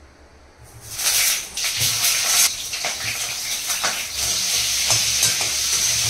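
Pointed gourd (potol) pieces dropped into hot oil in a kadai begin sizzling about a second in. The frying sizzle then runs steady and loud, with a few knocks of a spatula against the pan as the pieces are turned.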